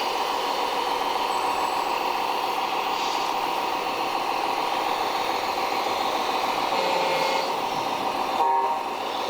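Small electric motors and gearboxes of radio-controlled model construction trucks and tractors running steadily with a whine, and a brief louder sound about eight and a half seconds in.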